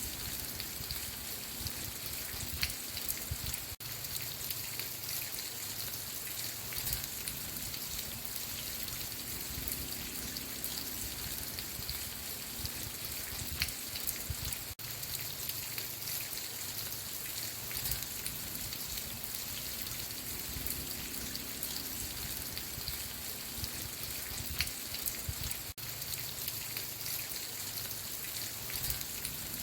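Steady rain falling on a surface, with many individual drops ticking through it. The sound dips briefly about every eleven seconds.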